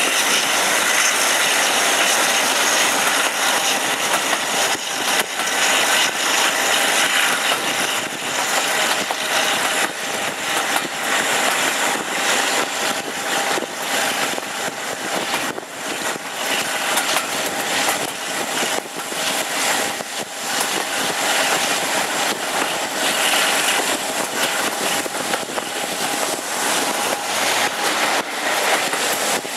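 A Class 52 'Western' diesel-hydraulic locomotive's twin Maybach diesel engines working steadily at the head of a moving train, heard from an open coach window, with rushing air and the clicking and rattle of the coach's wheels over the rail joints.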